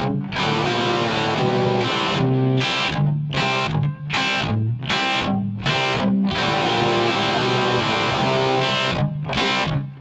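Music led by a distorted electric guitar over a bass line, broken by several short, abrupt stops between phrases.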